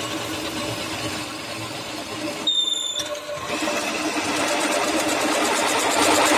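Pillar drill press running, its bit boring through a flat metal strip with a steady grinding hiss that grows louder in the last couple of seconds. A brief high tone sounds about two and a half seconds in.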